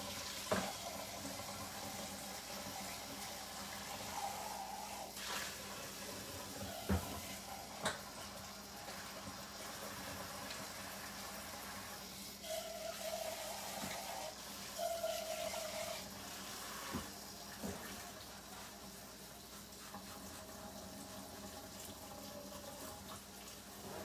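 Kitchen faucet running into a sink while a blender jar is washed by hand, with a few sharp knocks scattered through.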